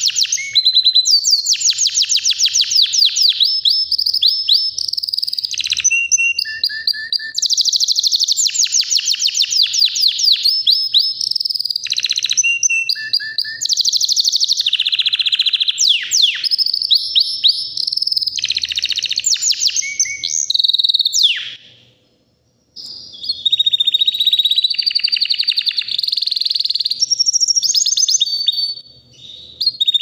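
White domestic canary singing a long, nearly unbroken song of fast trills and rolling repeated notes, changing from one phrase to the next, with a brief silent break about two-thirds of the way through.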